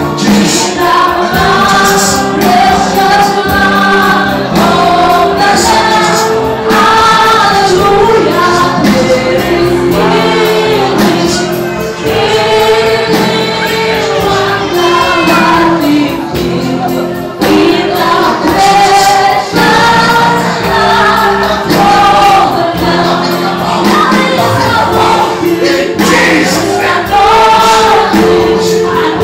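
Gospel music: a choir singing over steady held low notes.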